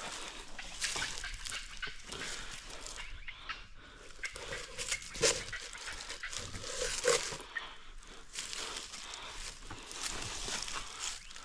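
Dry brush, twigs and leaf litter rustling and crackling as a person crawls low through a thicket, with a couple of louder snaps about five and seven seconds in.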